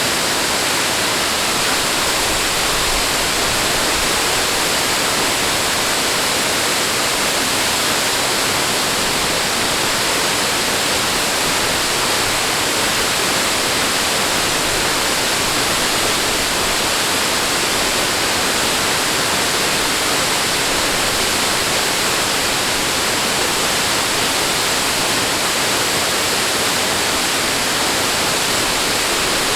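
Steady, unbroken rush of flowing water, like a waterfall or fast stream, with an even hiss and no surges.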